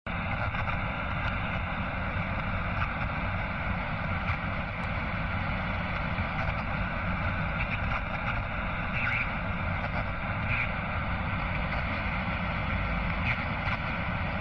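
Radio static: a steady hiss with a few faint crackles, starting abruptly.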